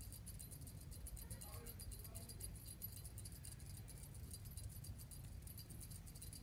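Faint, fast jingling from a feather cat-teaser wand being waved and shaken, over a low rumble.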